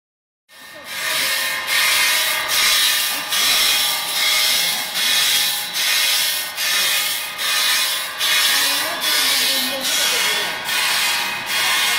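Dried sunflower seeds pouring off a conveyor into a steel machine hopper: a loud, hissing rattle of falling seeds that swells and dips in regular pulses, a little faster than one a second.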